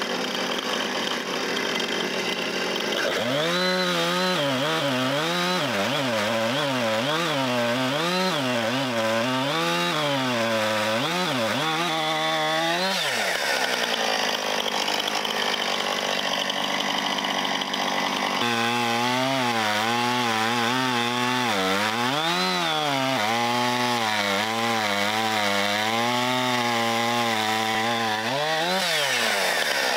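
Gas chainsaw cutting through a large oak log at full throttle. The engine pitch wavers up and down as the chain loads and frees in the hardwood, dipping briefly about 13 seconds in and again near the end.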